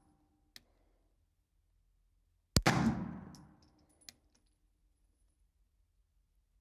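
A single 9mm pistol shot from a Girsan MC9 Match, about two and a half seconds in, its report echoing and dying away over about a second and a half in an indoor shooting lane. A light click follows about a second and a half later.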